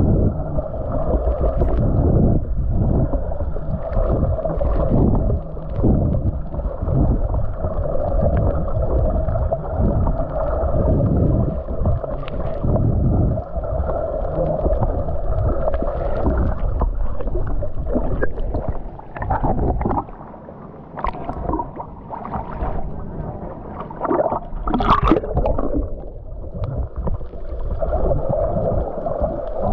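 Steady muffled rushing and gurgling of water, with a heavy low rumble. It drops quieter for a few seconds about two-thirds of the way in, then comes back with a few sharp splashes.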